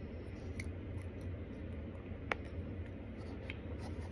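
A hand scooping powdered starch from a plastic tub and eating it: a few soft clicks and rustles, with one sharp click about two seconds in, over a steady low hum.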